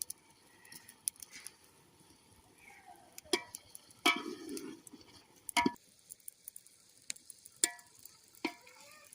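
Metal cooking utensil clinking against a pan while food is stirred: a handful of sharp, briefly ringing clinks a second or two apart, with a short scrape about four seconds in.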